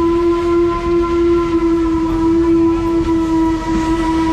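Steam locomotive's whistle sounding one long steady blast, a chord of several pitches held without a break, over the low rumble of the moving train.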